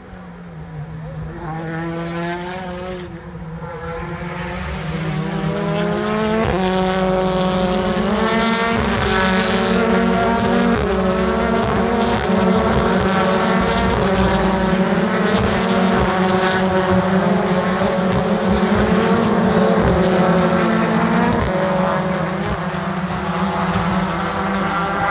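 A pack of saloon race cars passes at racing speed. The engines grow louder as the field approaches, then many engine notes overlap, each climbing in pitch and dropping again at gear changes as the cars stream by, and the sound eases slightly near the end.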